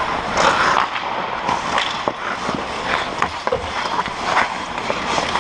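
Ice hockey skates scraping and carving the ice in front of the goal, with many sharp clacks of sticks and puck hitting the ice and the goalie's pads.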